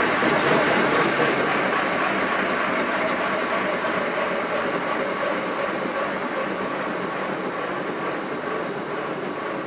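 7¼ inch gauge Sweet William model steam locomotive running on compressed air with its wheels turning free, a fast run of rapid exhaust beats mixed with loud hissing air from its open cylinder drain cocks. It slowly gets a little quieter.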